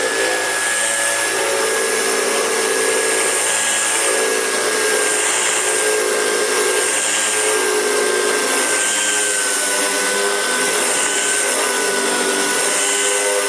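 Power tool's high-speed electric motor running steadily at full speed, a high whine over a loud hiss, its pitch sagging slightly about two-thirds of the way through.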